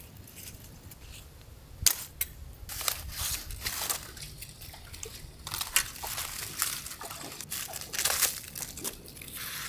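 Charred aluminium foil wrapping of an ember-roasted fish crinkling and tearing as it is cut and peeled open with a knife, in irregular crackly bursts with a sharp snap about two seconds in.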